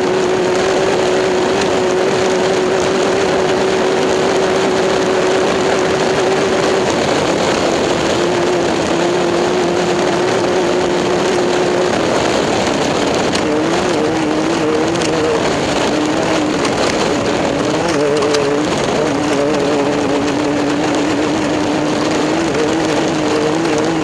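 Race car engines running at a racetrack: a loud, steady din with an engine note that holds level at first and wavers up and down in pitch from about halfway through.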